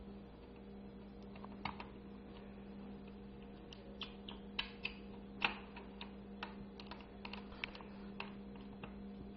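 Scattered light clicks and taps of a small screwdriver driving screws into a laptop's replacement screen assembly, starting about a second and a half in. A faint steady hum runs underneath.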